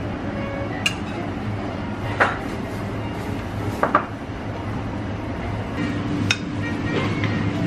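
Metal spoons clinking and scraping against ceramic curry plates and bowls: a handful of sharp, scattered clinks, the loudest about two seconds in, over a steady low hum.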